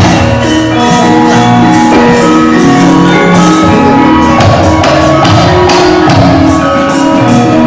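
Javanese gamelan playing: bronze metallophones and gongs ring out steady held notes, with repeated sharp metallic clashes from the kecrek, the puppeteer's struck metal plates.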